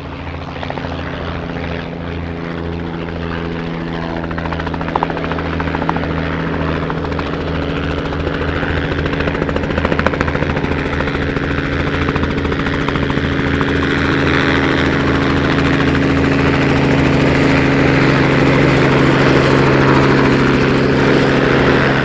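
Robinson R44 helicopter coming in to land: its piston engine and the rapid beat of its rotor run steadily, growing louder as it approaches.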